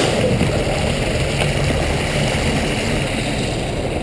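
Steady low motor drone from a fish stocking truck, running evenly with no change.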